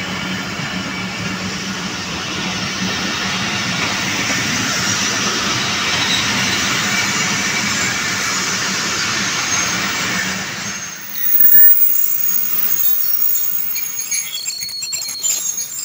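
Pakistan Railways passenger coaches rolling slowly past on the adjacent track, a steady rail rumble with a low hum. The noise drops away about two-thirds of the way through, leaving thinner noise with faint high squeals.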